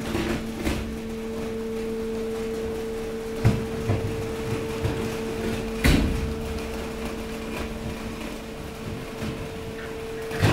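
Hydraulic waste compactor running: a steady machine hum while its steel plate slides under the waste, broken by a few sharp knocks as the plate and waste shift.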